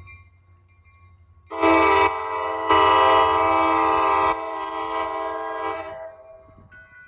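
A commuter train's horn sounds one long blast of several notes at once, lasting about four and a half seconds and easing back twice. Near the end, the crossing warning bell starts a faint, evenly repeating ring.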